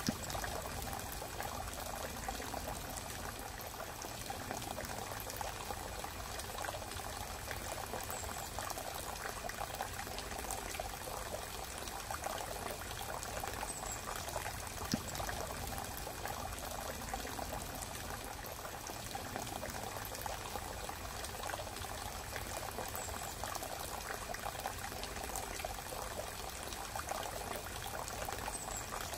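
A steady hissing, trickling noise like flowing water, with an occasional faint click.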